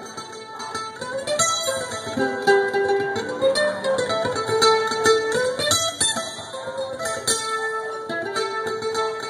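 Mandolin picking a traditional old-time tune, with long held notes that slide up in pitch now and then.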